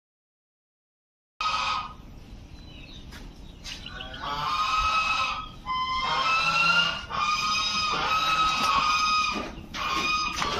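Domestic geese honking, several drawn-out calls overlapping one another from about four seconds in. The sound cuts out entirely for the first second or so.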